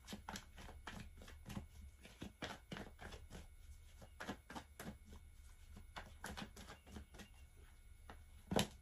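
A tarot deck being shuffled by hand: a quiet string of soft card clicks and slaps, several a second, with one louder tap near the end.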